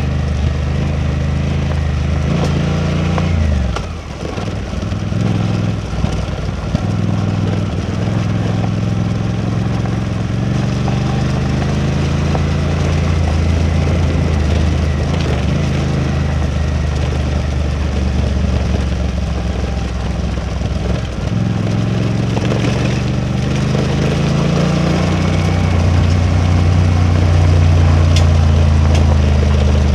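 Suzuki V-Strom 800DE parallel-twin motorcycle engine running under way. The engine note drops about four seconds in, holds steady, dips briefly again past the twenty-second mark, then rises and grows louder near the end.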